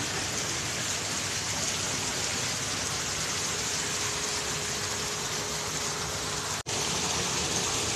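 Decorative rock-wall fountain: thin streams of water falling and splashing into a shallow pool in a steady rush. The sound cuts out for an instant about two-thirds of the way through, then carries on.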